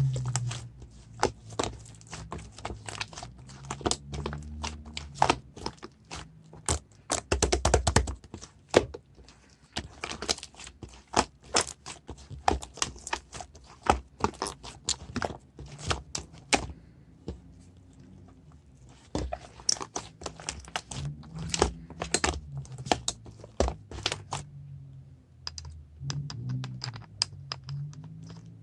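Slime being squeezed and worked by hand, giving a rapid run of sticky clicks and pops, with a short lull about two-thirds of the way through.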